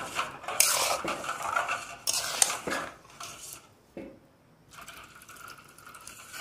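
A metal spatula scrapes and stirs thick mashed mango against the side of a steel pan. There are a few scraping strokes in the first three seconds, then only faint ones.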